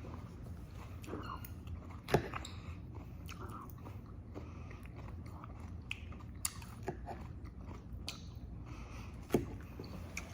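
A person chewing and biting food, with a few short sharp clicks, the loudest about two seconds in.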